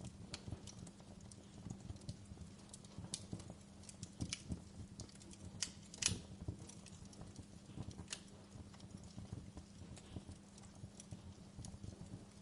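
Fireplace fire crackling: irregular small pops and snaps, the sharpest about halfway through, over a low steady hum.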